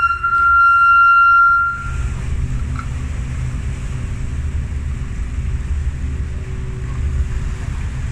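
Steady low rumble of a moored car ferry's engines running. It opens with a high, steady pitched tone that cuts off about two seconds in.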